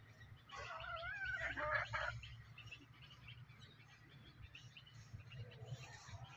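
A bird's warbling call, from about half a second in to two seconds in, over a low steady hum.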